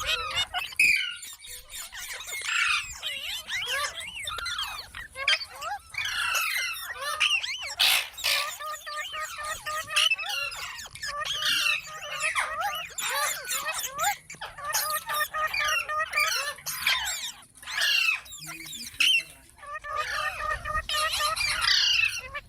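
Parrot chattering and squawking continuously, with rapid warbling, wavering calls and short squeaks.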